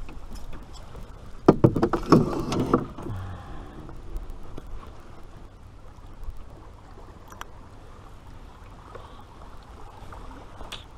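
Knocks and clatter in a canoe as a freshly caught fish and its lure are handled, in a burst about one and a half seconds in, over a steady low rush of the river and wind.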